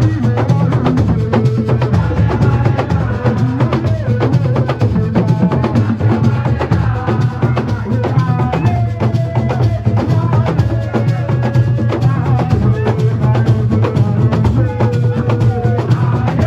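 Music driven by fast, dense drumming, with a melody line carried over the drums.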